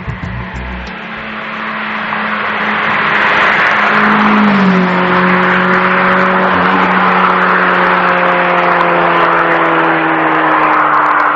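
Opel Calibra driving fast along a wet road towards the listener, its engine note over a steady hiss of tyres on wet tarmac. The engine drops in pitch once about four and a half seconds in and slides lower near the end.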